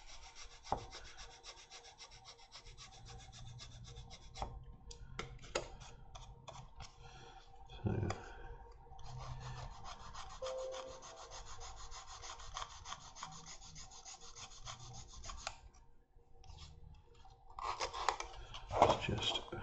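A file rubbed along the edge of a Depron foam sheet to bevel it: a dry, fine rasping in two long spells, with short single strokes and taps between them and a few louder knocks near the end.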